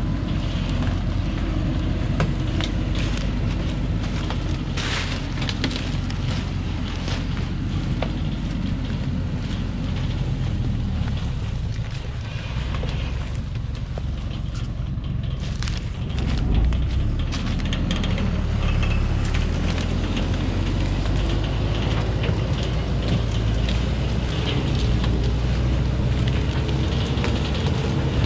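Thaco Forland FC950 4WD truck's diesel engine labouring steadily up a steep dirt slope, a low drone, with the chained tyres crackling and snapping over cut acacia branches. The engine eases off for a few seconds near the middle, then comes back up with a thump.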